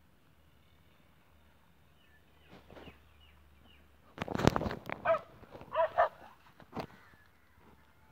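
A dog giving short yelps, two of them about a second apart, amid loud rustling and knocks from a phone being handled.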